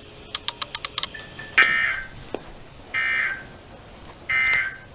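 NOAA Weather Radio EAS end-of-message signal: three short, buzzy digital data bursts about 1.4 s apart, marking the end of the warning broadcast. A quick run of clicks comes just before the first burst.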